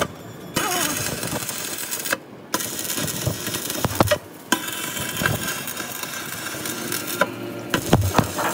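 Stick (arc) welding on a steel truck axle housing: the arc crackles and sizzles steadily, with several short breaks where it goes quiet and then starts again.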